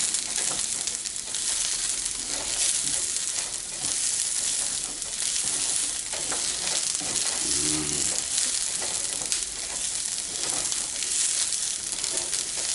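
Onions frying and sizzling in a hot pan while being stirred and scraped with a spatula as they caramelize.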